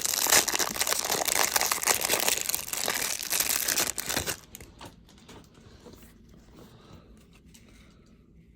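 The crinkly wrapper of a Topps baseball card pack being crumpled and torn open by hand. The crinkling stops suddenly a little over four seconds in, leaving only a few faint clicks of handling.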